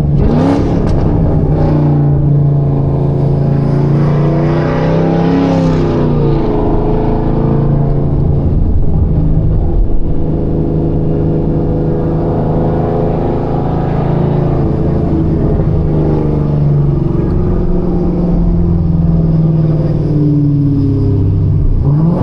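Chevrolet Camaro ZL1's supercharged V8 running while the car is driven. The revs rise near the start, swell and drop again around five seconds in, and climb once more near the end, with a steady engine note in between.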